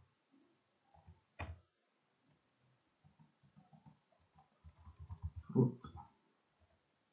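Typing on a computer keyboard: a couple of single key presses, then a quick run of keystrokes about three to six seconds in.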